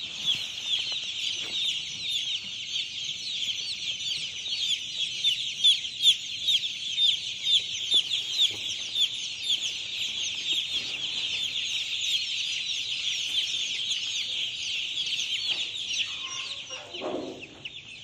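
Hundreds of young chicks peeping all at once: a dense, continuous chorus of short, high, falling peeps.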